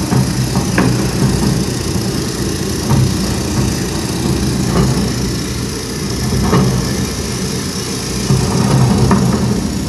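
A loud, steady, low engine-like rumble with a few faint clicks on top.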